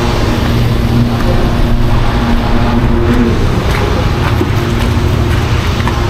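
An engine running steadily with a constant low hum.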